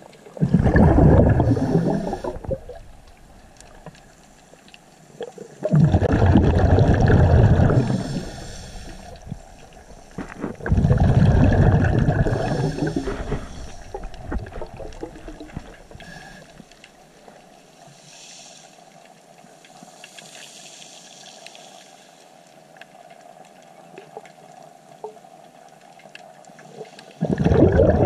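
Muffled sea water surging and sloshing, heard from underwater through a camera housing. There are three loud swells a few seconds long, about five seconds apart, then a long stretch of faint steady hiss and hum, and another surge near the end.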